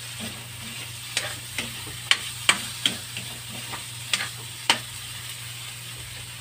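Metal spatula scraping and clinking against a metal wok as diced meat, garlic and onion are stirred, with a light sizzle of frying under it. The clinks come irregularly, about eight sharp ones, and stop about a second and a half before the end; a steady low hum runs under it all.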